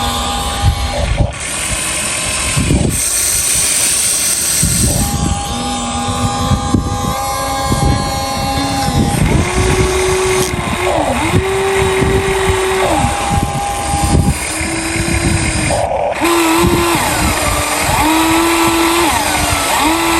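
Small electric motors of radio-controlled construction models whining, with several steady tones that start and stop every second or two and glide up or down in pitch as the machines move. Rough crackling underneath throughout.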